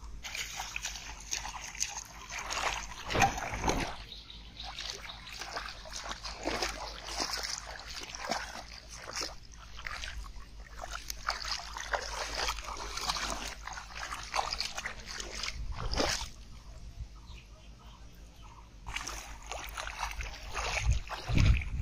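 Shallow pond water splashing and sloshing around a wading person's legs and hands as he grabs at fish, in irregular bursts with a few louder splashes and a quieter spell a few seconds before the end.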